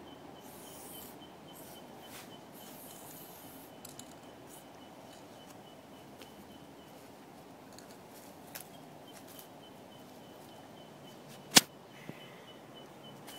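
Aerosol spray paint can hissing in a few short bursts over the first few seconds, against a steady low background. A single sharp click near the end is the loudest sound.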